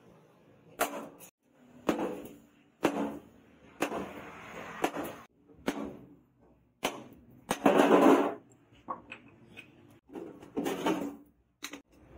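Hand hammer blows on a leaf-spring steel machete blade resting on a steel post anvil, single strikes about a second apart, each with a short ring. Around eight seconds in comes a louder rush of noise lasting about a second.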